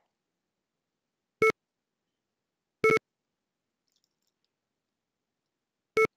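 Three short electronic beeps, each a probe point being registered while a circle is probed for a CMM alignment. They come about a second and a half in, just under three seconds in, and near the end.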